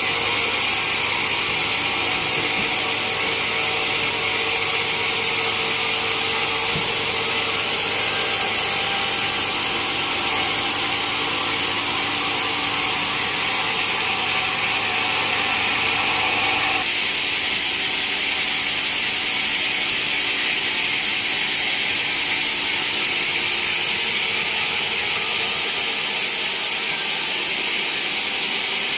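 Bandsaw mill cutting through a teak log: a steady, loud, high-pitched run of blade and machine noise. A lower hum drops out about two-thirds of the way through while the cutting noise carries on.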